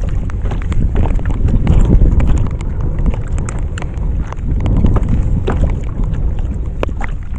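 Wind buffeting the microphone in a steady low rumble, with many small irregular clicks and taps scattered through it.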